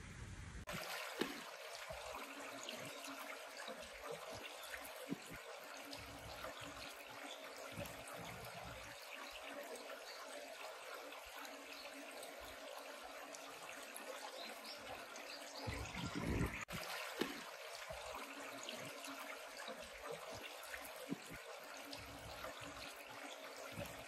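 Shallow water running steadily down a narrow concrete channel, a continuous trickling rush that starts just under a second in. A brief low thump about two-thirds of the way through is the loudest moment.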